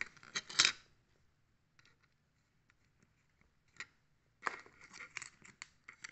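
Plastic Lego bricks being handled and pressed together: short clicks and rattles. There is a loud burst about half a second in, scattered small clicks after it, then another cluster of clicks from about four and a half seconds on.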